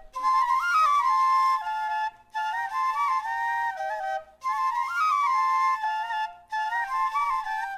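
Music interlude of two flutes playing a melody together in parallel, in short phrases of about two seconds with brief breaks between them.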